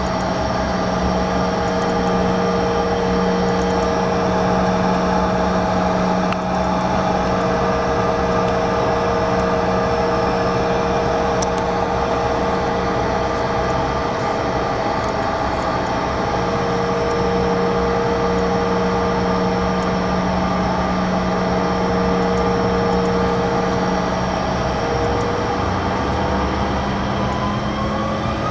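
Cabin sound of a Bombardier CRJ-700's twin rear-mounted turbofans: a steady engine hum with several held tones while the jet stands on the runway. Near the end the engine pitch starts rising as thrust comes up for the takeoff roll.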